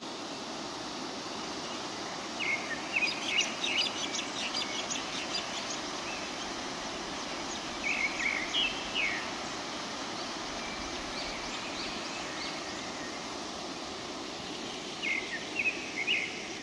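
Steady rushing of a fast river running over rocks and rapids, with bursts of small bird chirps about two seconds in, around eight seconds, and again near the end.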